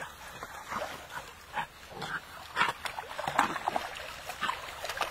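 Labrador puppies whining and yelping in short, irregular bursts, over light splashing from a dog paddling in the water.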